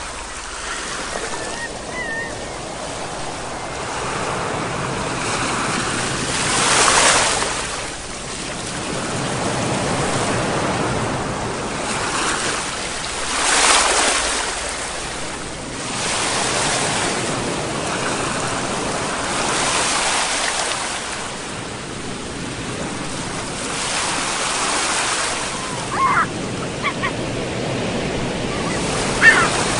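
Ocean waves breaking on a shore, surging in swells about every six to seven seconds over a steady wash of surf. A few short high-pitched calls sound near the end.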